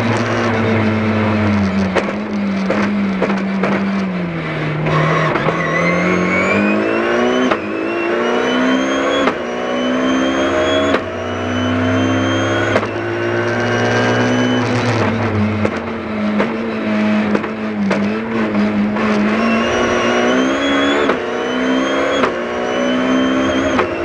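BMW rally car's engine heard from inside the cabin at full stage pace: the revs dip once, then climb hard and drop back at each of several quick upshifts, pulling through the gears.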